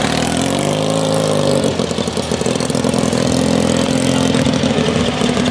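Dnepr MT16 sidecar motorcycle's flat-twin boxer engine pulling away. Its pitch rises and falls about a second in, then holds steady as the bike moves off.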